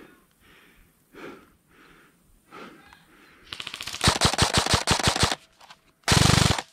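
Airsoft guns firing full-auto: a rapid rattling burst of about two seconds starting midway, then a louder, shorter burst of about half a second near the end.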